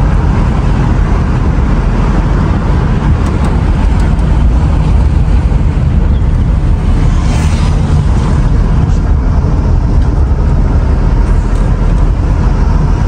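Steady rumble of a car on the move: engine and road noise, heavy in the low end, with a brief louder hiss about seven seconds in.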